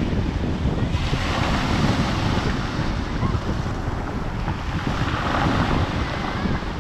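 Sea waves washing onto the beach, with wind buffeting the microphone in a steady low rumble. The wash swells about a second in and again around five seconds.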